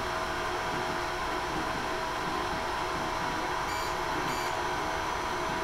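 Ender 3 Max 3D printer running as it lays down the first layer: a steady whir of the cooling fans and stepper motors driving the print head. Two brief high-pitched beeps come about half a second apart past the middle.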